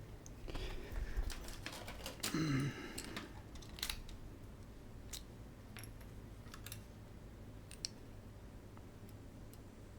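Scattered light clicks and taps from small parts being handled on an electronics repair bench, close together for the first few seconds, then a few isolated ticks, over a faint steady low hum.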